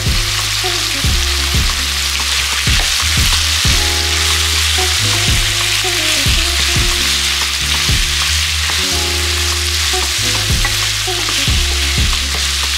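Chunks of meat frying in oil in a nonstick pan, sizzling steadily and loudly while being stirred and turned with a wooden spoon.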